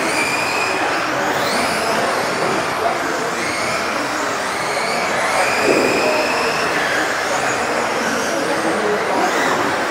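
Several electric RC off-road buggies of the modified class racing together: high motor whines rising and falling as they accelerate and slow for the corners, over a steady rushing noise.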